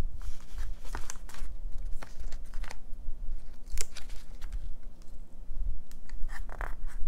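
Close-up paper and sticker handling: scattered crinkles, light rustles and small clicks and taps as a piece is peeled and pressed onto a diary page.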